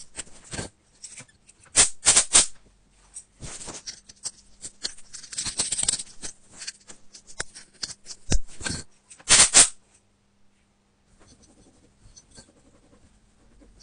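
Close-up scraping and scratching of a thin pick digging packed lint and grit out of a phone's speaker grille holes, in irregular rasping strokes and ticks. It stops about ten seconds in, leaving only faint ticks.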